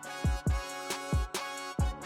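Background music with a steady beat of deep, booming kick drums.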